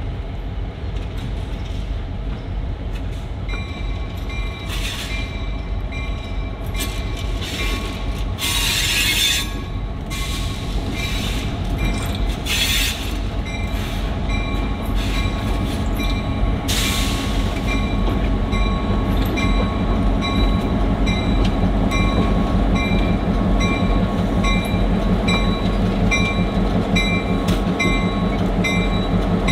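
Two EMD GP38-2 diesel locomotives running slowly past, their non-turbocharged 16-cylinder two-stroke engines drumming and growing louder as they draw close. Their bell rings at an even pace from a few seconds in, and a few short screeches from the wheels come in the first half.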